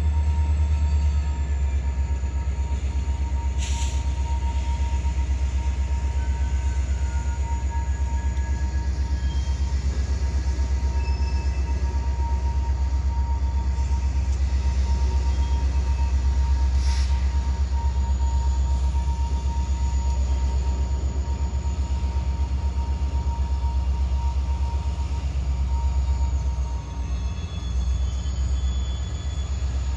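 Freight train rolling past with a steady heavy rumble and a constant thin whine. There are two short sharp clanks, about 4 and 17 seconds in.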